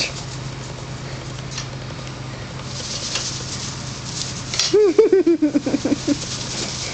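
Faint pattering over low background noise, then, a little after four and a half seconds in, a woman's short run of giggling, about eight quick rising-and-falling notes.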